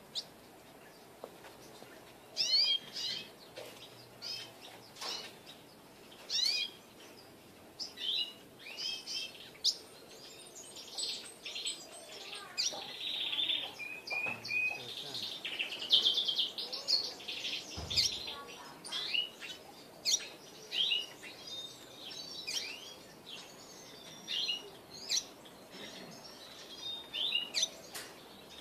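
Caged double dilute red siskin singing: a series of short chirps and warbled phrases, with a longer run of twittering trills in the middle.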